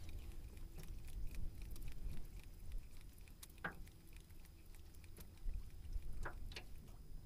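Wind rumbling on the microphone over open water, with a few brief faint chirps, one midway and two close together near the end.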